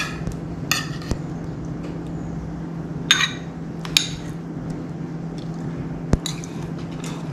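Metal spoon and fork clinking against a ceramic plate and rice bowl: a handful of short, separate clinks, over a steady low hum.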